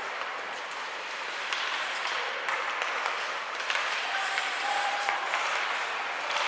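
Ice hockey arena crowd noise: a steady wash of spectators' voices and clapping, with scattered sharp clicks from the ice.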